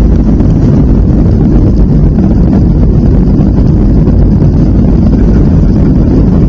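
Steady, loud rumble of a Boeing 757 heard from inside the passenger cabin as the airliner rolls along the ground: jet engine and rolling noise with no distinct tones or changes.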